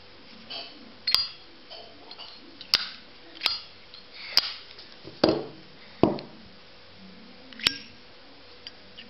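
Zippo lighter lids snapping open and shut with sharp metallic clicks, about seven of them at uneven intervals, some with a brief ring.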